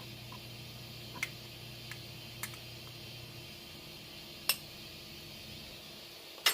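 A few light, sharp clicks of eating utensils on a dish, spaced a second or two apart, over a low steady hum that stops about halfway through.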